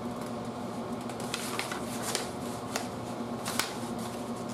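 Scattered light clicks and rustles of things being handled, over a steady low room hum.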